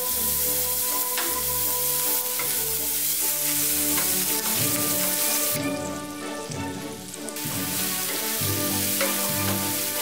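Chopped garlic and diced bacon sizzling in hot oil in a frying pan, stirred with a wooden spatula that gives a few light scrapes. The sizzle thins for a couple of seconds a little past the middle, then comes back.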